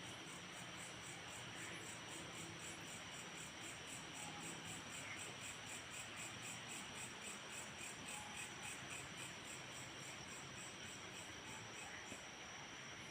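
Night insects chirping in a fast, even pulse of about four chirps a second over a steady high whine. The pulsing stops near the end.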